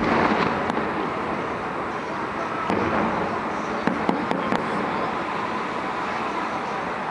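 Aerial fireworks shells bursting: a steady wash of crackling and rumble, with a few sharper bangs from about three to four and a half seconds in.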